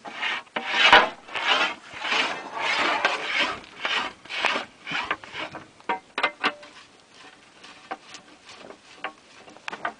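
Gritty rasping scrapes, about two a second, from a small tripod-mounted drilling rig working its rods in a muddy borehole. About six seconds in they give way to scattered sharp clicks and knocks.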